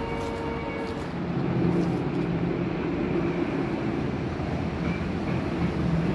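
A steady low mechanical drone that gets louder about a second in, with a thin steady whine that stops at about the same moment.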